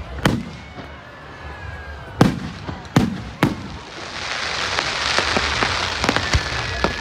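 Fireworks display: four sharp bangs of shells bursting in the first three and a half seconds, each trailing a low rumble, then a dense hissing crackle from about four seconds in.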